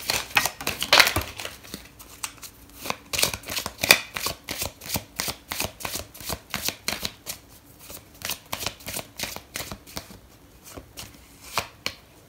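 A deck of cards being shuffled by hand: a quick, busy run of card slaps and flicks that settles into a steady patter of about two to three a second, thinning to single taps after about ten seconds.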